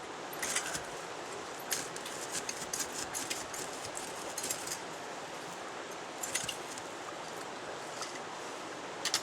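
Irregular light clicks and clinks of small hard objects knocking together, heard over a steady rush of running water.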